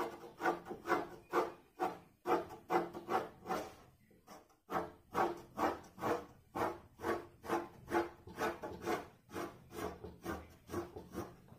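Graphite pencil stroking over drawing paper on a wooden drawing board, retracing sketch lines to make them clearer. It comes as a run of short scratchy strokes, about three a second, with a brief pause about four seconds in.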